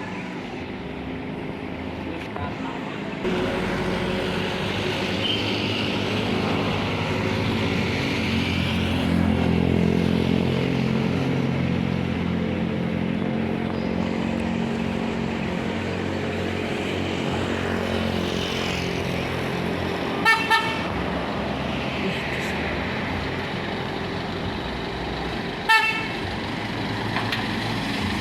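A medium tour bus's diesel engine running as the bus pulls out, swelling after a few seconds and then easing off. Short horn toots sound about 20 seconds in, twice close together, and again near the end.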